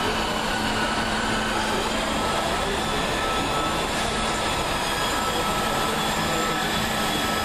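Steady background roar at an even level, with a low hum and a thin high whine running through it.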